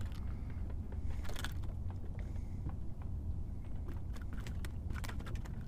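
Handling noise aboard a fishing boat as a just-landed small bass and tackle are dealt with: scattered light clicks and taps over a steady low rumble.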